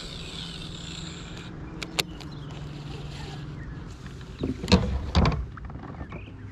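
Baitcasting reel being cranked in with a steady low whir for about four seconds. Then a few loud knocks against the plastic kayak as the rod is set down and gear is handled.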